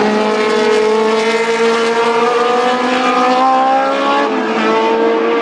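Engines of 1970s two-seater sports racing cars accelerating along the track, the pitch climbing steadily, dropping at a gear change about four seconds in, then climbing again.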